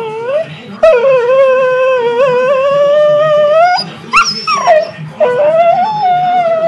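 Dog howling in long, drawn-out calls: one long howl that holds steady and rises near its end, a short higher call that drops, then another long howl.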